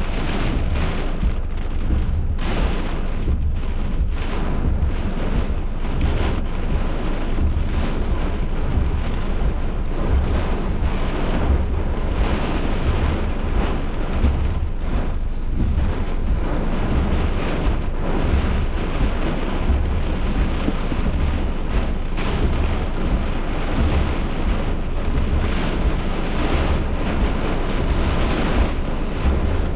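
Heavy rain and wind of a severe thunderstorm: a steady, dense rush with a constant low rumble underneath.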